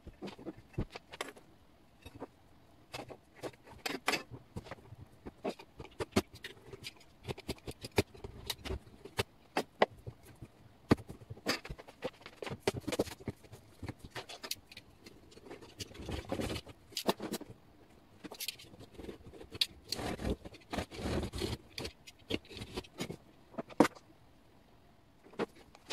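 Irregular clicks, knocks and short scrapes of hand work on a wooden fireplace build: pieces and tools being handled, set down and shifted, with one sharper knock near the end.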